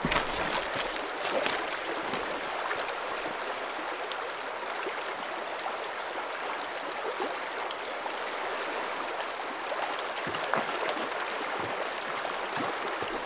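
Shallow river flowing steadily over a rocky cobble bed: a continuous rush of moving water, with a few brief clicks.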